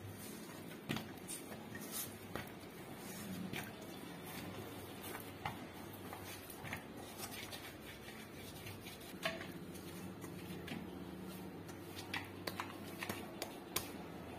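Hand kneading a stiff, oiled wheat-flour dough in a stainless steel bowl: soft squishing with scattered light clicks and taps against the metal bowl, over a faint steady hum.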